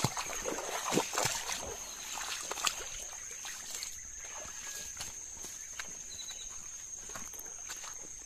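Footsteps splashing and rustling through shallow water and grass, scattered knocks most frequent in the first few seconds, over insects buzzing in one steady high tone.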